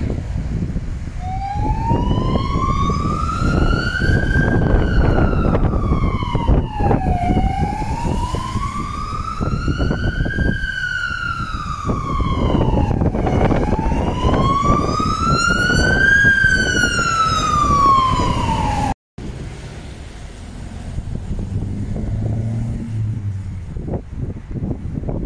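Fire engine siren sounding a slow wail, its pitch rising and falling about every six seconds, three times over, above the low rumble of traffic. It cuts off suddenly about three-quarters of the way through, leaving only road noise.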